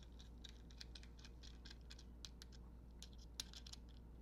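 Faint, irregular clicks and light scrapes of small steel bolts and washers being handled and fitted into a clip-on handlebar clamp, with a slightly louder click a little before the end.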